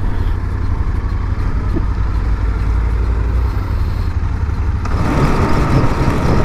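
Motorcycle engines running with a steady low rumble as two bikes pull away. About five seconds in the sound changes abruptly to riding along the road, with more wind and road noise.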